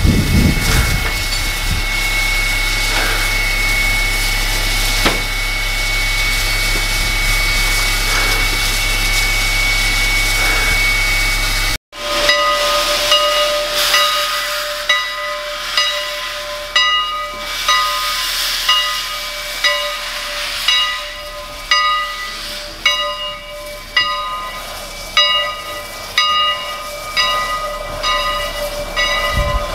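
Steam locomotive Canadian National 89, a 2-6-0, hissing steam steadily with a high steady tone in it. After a cut about twelve seconds in, its bell rings about once a second over a steady tone.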